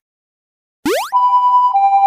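A quick rising swoop sound effect about a second in, then a cartoon railroad crossing alarm: an electronic two-tone sound, with the stronger pitch switching between the two tones about every 0.6 s.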